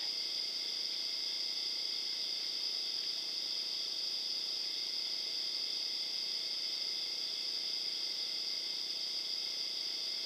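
Steady chorus of night insects such as crickets, a continuous high-pitched trill with no breaks.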